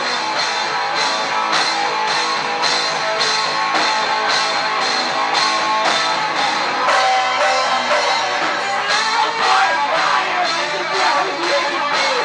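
Live rock band playing loud: electric guitar over a drum kit keeping a steady beat, with the bass end dropping out for a couple of seconds past the middle.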